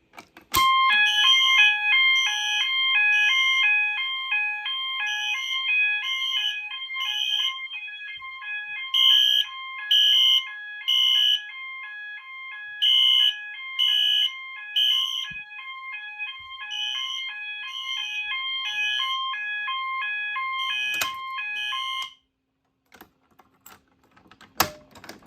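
Electronic fire alarm horns, a Wheelock Exceder and a System Sensor MASS, sounding together during a system test. A loud pattern of rapidly stepping tones runs under repeated groups of three short horn blasts with a pause between groups, the temporal-three evacuation code. The alarms cut off suddenly about 22 seconds in, followed by a few faint clicks.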